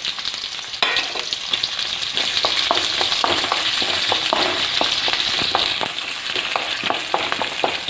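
Curry leaves going into hot oil with ginger, green chillies and garlic in a wok: a loud sizzle flares up about a second in and settles a little near the end. A spatula clicks and scrapes against the pan as the mixture is stirred.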